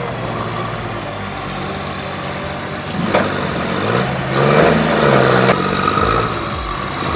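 Engine of a vehicle or heavy machine running, revving up about four seconds in and easing back down a second and a half later.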